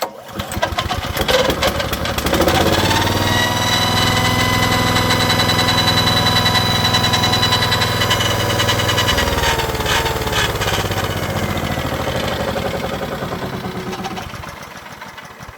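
Wood chipper's 212 cc Rato petrol engine starting and revving up to full speed, then running steadily. About nine seconds in the pitch falls as it slows down, and it fades out as it winds down.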